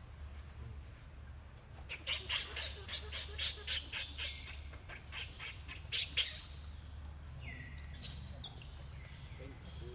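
A rapid run of harsh squawking calls, about four a second for some four seconds, followed a little later by a brief cluster of high, short calls.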